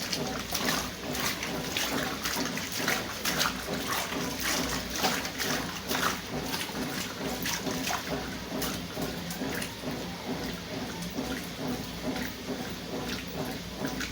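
Consul CWS 12 washing machine with water sloshing and splashing in its tub, irregular splashes over a steady low hum.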